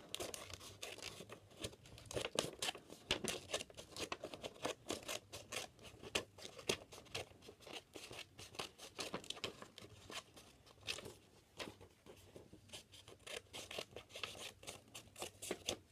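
Scissors snipping through a sheet of paper in many short, irregular cuts, with the paper rustling as it is turned.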